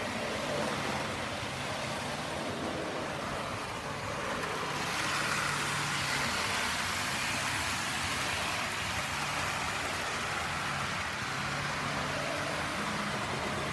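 Model train running on its layout track: a steady rush of wheel and motor noise with a low hum that comes and goes, growing louder about five seconds in.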